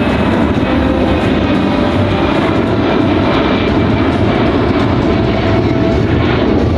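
The four Pratt & Whitney F117 turbofan engines of a C-17 Globemaster III in flight, running loud and steady, with a few faint whining tones above the noise.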